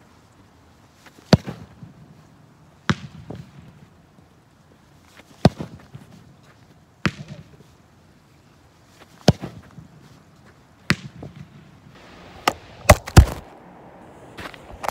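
Football kicks on artificial turf, the ball thudding against a target board: six sharp thuds a second and a half to two and a half seconds apart. Near the end comes a quick run of loud knocks and rattling as the recording phone is knocked over.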